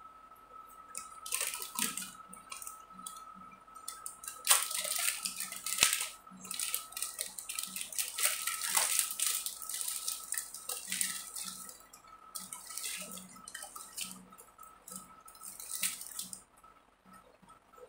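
Irregular crinkling and rustling with sharp little clicks, coming and going in bursts, most busily in the middle. A faint steady high whine runs underneath.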